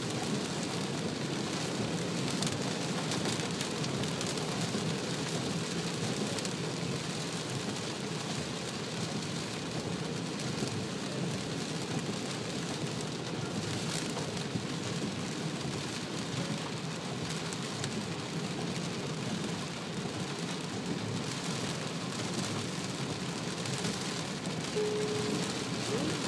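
Rain pelting the roof and windshield of a moving car, heard inside the cabin, mixed with steady tyre and road noise on the wet highway.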